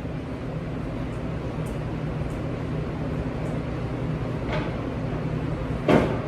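Steady low machine hum of a working kitchen, with a light knock about four and a half seconds in and a sharp, loud clack near the end, like a hard object or door banging shut.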